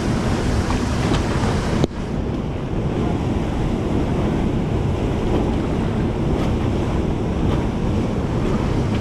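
Steady rush of whitewater in a rafting channel, mixed with wind buffeting the microphone. About two seconds in the sound breaks off abruptly and carries on duller.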